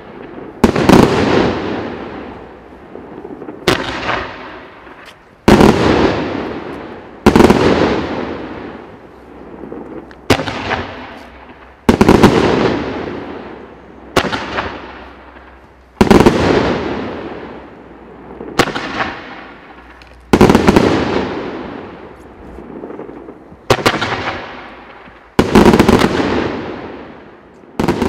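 80-shot 30 mm fan fireworks cake firing, a loud volley of aerial shots about every one and a half to two seconds. Each volley is a sharp bang that fades out over a second or more as the strobe and charcoal stars burst.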